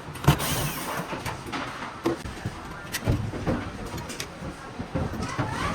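Hands working on parts inside a claw machine cabinet: irregular clicks, knocks and rustling, with the loudest knock about a quarter second in.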